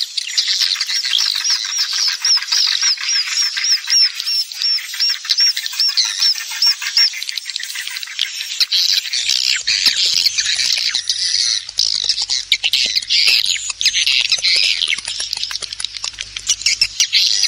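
Swiftlet calls in a mixed lure recording built from roosting sounds: a rapid run of repeated chirps, a few a second, for the first several seconds, then dense overlapping twittering with many short clicks. A faint low hum comes in about halfway through.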